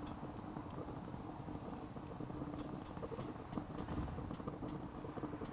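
Propane gas grill burning on its lowest setting, a steady low rush with a faint hum, and sparse faint crackles and ticks from the moose tenderloin cooking on the grate.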